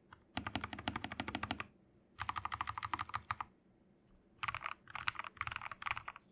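Mechanical keyboard being typed on fast: an MK870 with a polycarbonate plate, lubed and filmed Gateron Milky Yellow linear switches and clone GMK keycaps, with foam and tape mods. Three runs of rapid keystrokes with short pauses between them, the last run choppier.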